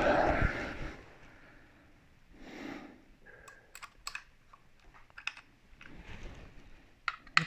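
A short burst of handling noise at the start, then scattered light clicks and taps of telescope gear being handled and adjusted.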